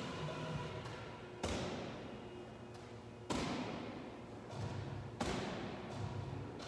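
Wall-ball reps: a 14-pound medicine ball thrown up and striking its target, three sharp impacts about two seconds apart, each ringing out briefly in a large room.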